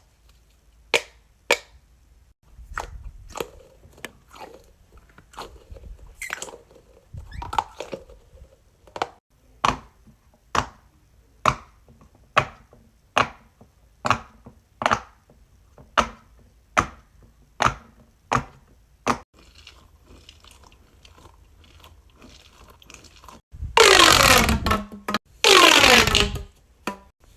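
Fidget toys being handled: a long run of sharp pops and clicks, about one to two a second. Near the end they give way to loud drawn-out squeaky rubbing sounds that fall in pitch.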